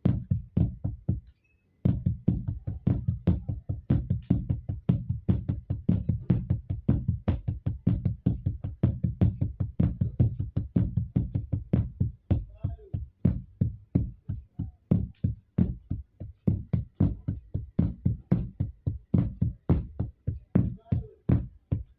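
Drumsticks playing a repeating flam right, flam left, left sticking on a drum, a steady stream of sharp strokes that stops briefly about a second in and then picks up again.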